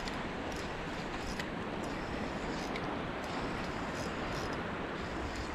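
Steady rushing noise of wind and sea water over the microphone, with a few faint ticks.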